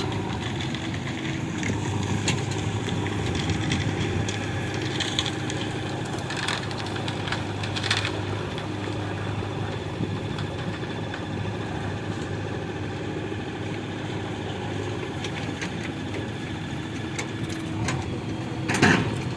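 Diesel engines of a backhoe loader and tractor running steadily while mud is loaded, with a few short crunching clatters, the loudest near the end.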